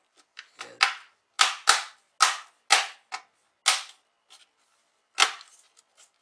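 The plastic latching clips of an HP Pavilion 15 laptop's bottom case snap into place one after another as the case halves are pressed together. It is a string of about ten sharp snaps, the loudest within the first four seconds and one more about five seconds in.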